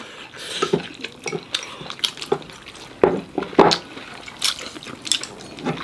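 Spoons and chopsticks clinking and scraping against bowls and a pot as food and broth are scooped out: a run of separate sharp clicks and knocks, the loudest about three seconds in.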